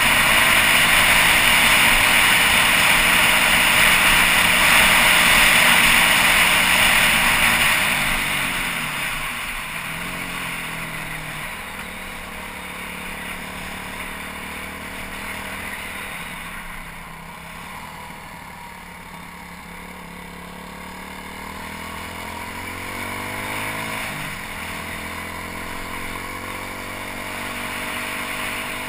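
BM Motard 200 supermoto's 200 cc engine running under way, with loud wind rush over the engine note. About eight seconds in the engine slows and the wind dies down, the engine runs quieter at low revs, and it picks up speed again near the end.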